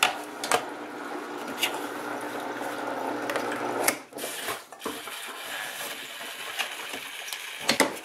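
Panda B45 twin-tub washer's drain cycle running, a steady motor hum with water running out through the drain hose, near the end of draining. It is switched off at the wash-select knob about four seconds in. After that come a few plastic clicks and knocks.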